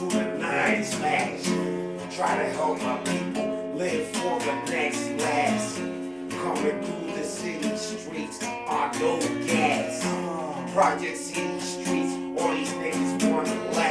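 Acoustic guitar strummed in a steady rhythm, its chords ringing.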